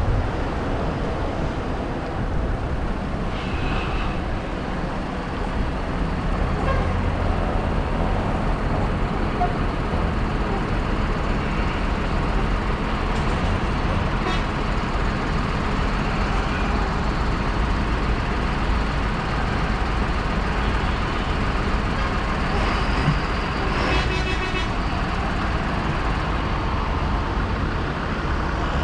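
Diesel tractors driving past in a procession, their engines making a steady low drone, with other road vehicles among them.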